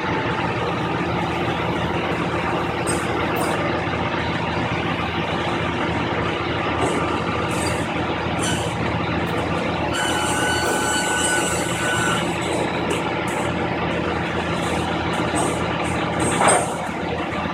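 Heavy vehicle's engine running steadily, with short bursts of hiss and a brief higher whine about two-thirds of the way through, then a short loud swell near the end.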